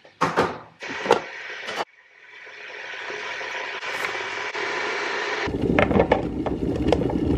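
Tea-making sounds: a few knocks and rustles of handling, then a rush that builds up and holds steady, and from about five and a half seconds a louder, deeper rumble with scattered clicks as a Philips electric kettle heats toward the boil.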